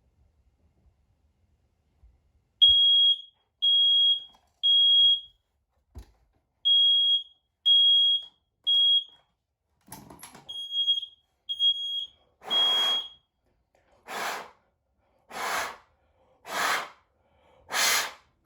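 Smoke alarm sounding its piezo horn in the temporal-three pattern: three loud high-pitched beeps, a pause, repeated three times. The alarm then stops, and five short bursts of hissing noise follow about a second apart.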